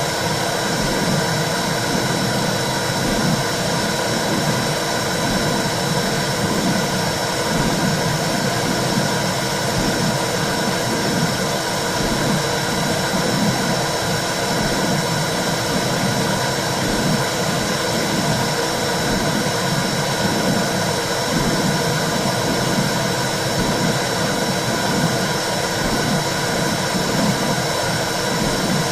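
Womb sound for soothing a baby: a steady whooshing noise with a low, regular pulse about once a second, like a heartbeat and blood flow heard from inside the body.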